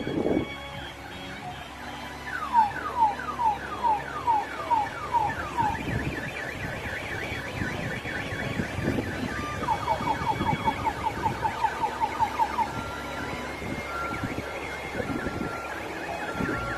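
Car alarm going through its cycle: a string of falling whoops, then after a pause a fast run of short beeps, about five a second.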